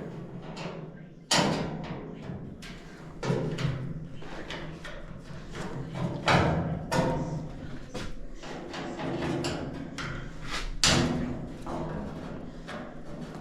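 Irregular thumps, knocks and clatter of hands-on work on a furnace as it is opened up to get at the heat exchanger, over a steady low hum.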